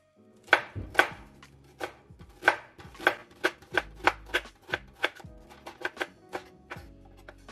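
Chef's knife slicing a white onion on a wooden cutting board: a run of sharp knocks as the blade goes through and meets the board, about two to three a second, starting about half a second in and getting quicker.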